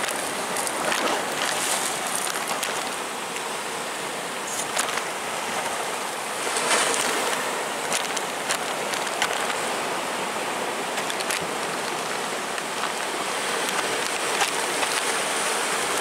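Sea surf washing and churning against rocks: a steady rushing hiss of breaking waves and foam that swells a little about six and a half seconds in, with a few faint short clicks.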